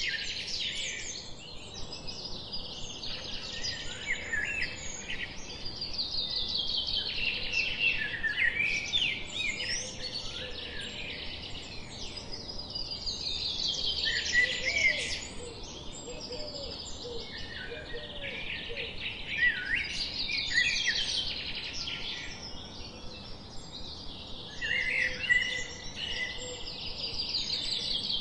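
Songbirds singing: fast, high trilling phrases repeating about every six seconds, with scattered chirps in between.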